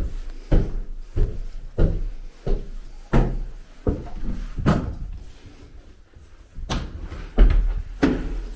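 Footsteps climbing stairs: heavy thumps about every two-thirds of a second, with a short pause a little past halfway before the steps resume.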